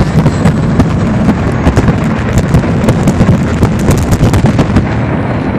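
Building implosion heard from a distance: a rapid, crackling series of explosive demolition charges over a low rumble as the hotel tower collapses. The cracks thin out near the end.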